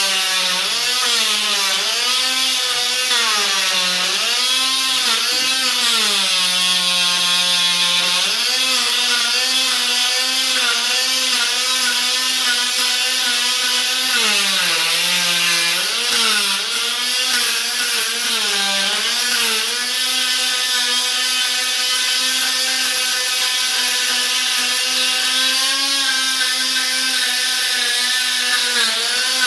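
Oscillating multi-tool running continuously, really loud, as its blade scrapes old vinyl flooring off the floor. Its steady whine sags in pitch several times as the blade bites in under load, longest about six to eight seconds in, then recovers.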